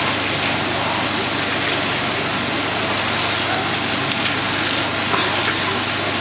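A building fire burning in an attic: a loud, steady rushing hiss with a few faint crackles.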